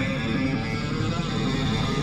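Guitar music playing over the festival stage's loudspeakers.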